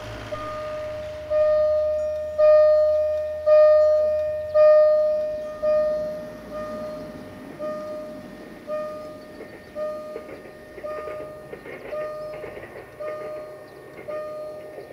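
Railway level-crossing warning bell ringing about once a second, each ding fading before the next, loudest in the first few seconds. The rumble of a distant approaching diesel multiple unit rises under it in the last few seconds.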